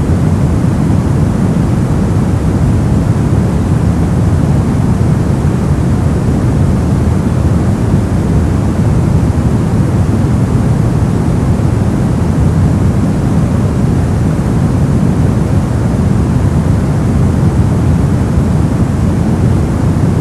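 Brown noise: a steady, deep, rumbling hiss, strongest in the low range and falling off toward the top, unchanging throughout.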